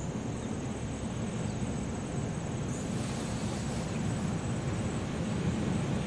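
SEPTA Silverliner IV electric multiple-unit train approaching: a steady low rumble of wheels on rail that grows slowly louder.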